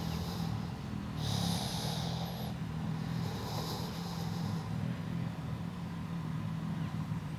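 Steady low engine hum running throughout, with two stretches of high-pitched hiss, about a second and about three seconds in.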